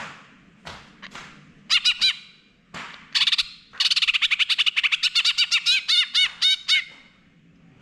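Male green leafbird (cucak hijau) singing in full song ('gacor full nembak'). It gives a short burst of three loud, rapid notes about two seconds in and another near three seconds. From about four seconds in it runs into a long, fast series of ringing notes, about six a second, which stops a second before the end.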